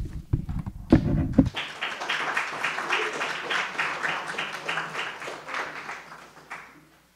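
Thumps and rumble from a handheld microphone being put down on a podium, then a small audience clapping for about five seconds, fading out near the end.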